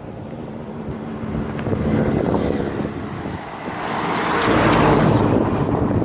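A motor vehicle's engine running, with a swell of louder noise about four to five seconds in that then eases off.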